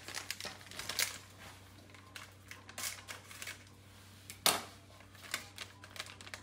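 Small plastic sachets of coconut powder being handled and torn open: scattered crinkles and sharp ticks, the loudest about four and a half seconds in, over a steady low hum.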